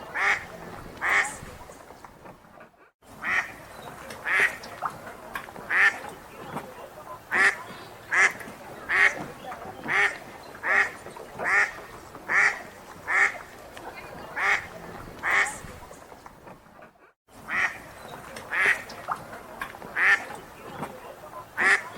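Wild ducks quacking in a quick run of loud, repeated quacks, about one every three-quarters of a second, over softer calls from other ducks. The sound cuts out abruptly for a moment twice.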